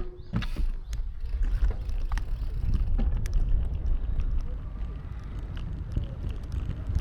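Wind rumbling on the microphone, with scattered light clicks and knocks.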